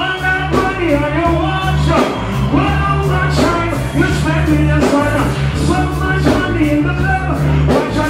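Live dancehall performance through a PA: a deejay chanting into a microphone over a heavy, steady bass line.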